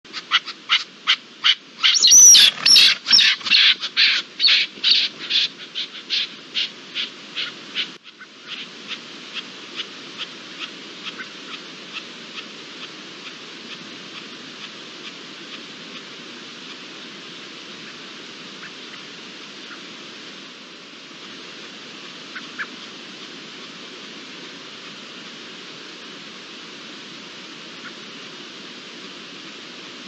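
Iberian lynx lapping water from a trough: quick wet laps about three to four times a second, loud for the first eight seconds, then faint over a steady hiss until they die away.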